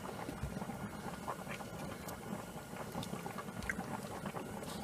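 Boiled corn cobs being lifted out of a pot of cooking water: water dripping and splashing back into the pot, with small clicks of the cobs being handled.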